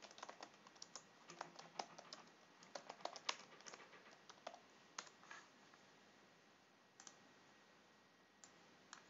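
Faint typing on a computer keyboard, quick keystrokes for about five seconds, then a few single clicks.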